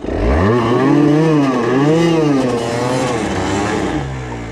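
Yamaha TDR 125's two-stroke single-cylinder engine revved hard. The pitch climbs steeply at the start, swells and dips twice, then eases off near the end, with the rear wheel spinning for lack of grip on the slippery ground.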